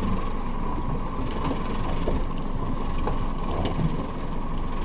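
Outboard motor running steadily at idle, a constant hum, kept on to hold the boat in position because it has no spot lock.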